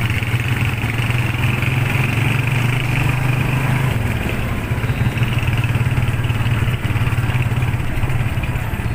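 Motorcycle engine of a tricycle (motorcycle with sidecar) running steadily under way, heard from the sidecar with road noise. Its low hum eases slightly about four seconds in.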